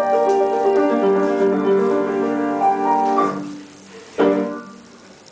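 Piano playing a slow melody over held chords. The playing fades out a little after three seconds, and a single chord is struck about four seconds in and left to ring away.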